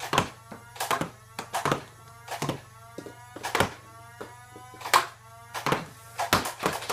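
Nerf Strife flywheel dart blaster firing a string of darts, a sharp click with each shot and a short motor whine between shots.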